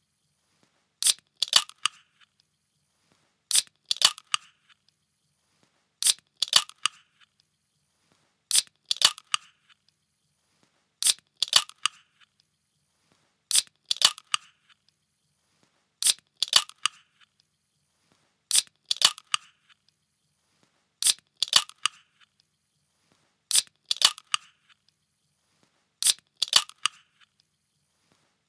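A can being opened, over and over: a sharp crack, a second snap and a brief fading rustle, repeated about every two and a half seconds, eleven times.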